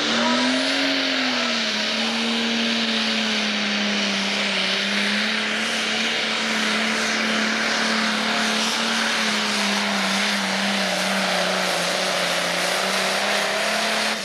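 Pro Stock pulling tractor's turbocharged diesel engine at full throttle, dragging a weight-transfer sled. The engine note rises briefly about a second in, holds a steady pitch through the pull, and drops off sharply at the end as the throttle is let off.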